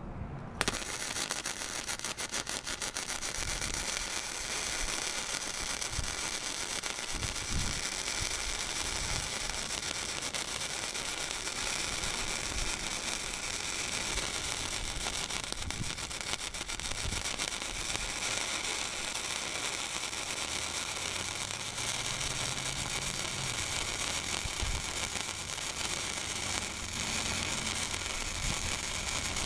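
Flux-core welding arc from a Blue Demon 140MSI welder laying one continuous bead. It is a steady, dense crackle that starts about half a second in. The voltage trim is set back to the middle with a shorter wire stickout, and the arc runs smoothly.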